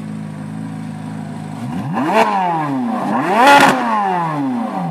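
2023 Corvette Z06's 5.5-litre flat-plane-crank V8 idling, then blipped twice: about two seconds in and again about a second later, each rev climbing quickly and dropping back to idle, the second one louder.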